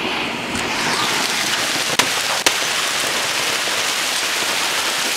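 Hail and heavy rain pelting down in a dense, steady hiss, with two sharp cracks about half a second apart around two seconds in.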